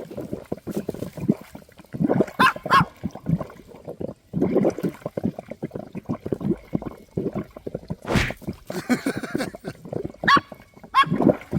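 A small dog giving a few short high yips amid continual scuffling and rustling.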